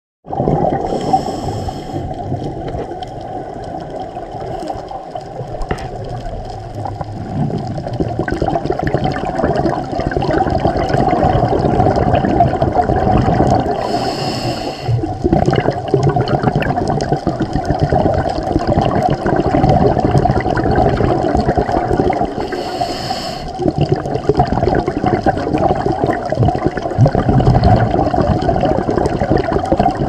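Underwater scuba-dive sound: a steady muffled rush and gurgle of water and regulator exhaust bubbles. It is broken three times by brief, brighter hissing bursts of bubbles.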